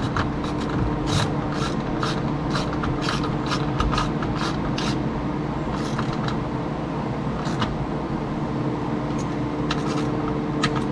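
Socket ratchet on an extension tightening the panel bolts, a run of short sharp clicks, closely spaced in the first half and sparser later, over a steady low hum.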